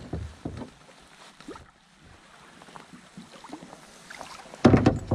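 Small knocks and water lapping against a boat, then near the end a sudden loud burst of splashing as a hooked trout thrashes into the landing net.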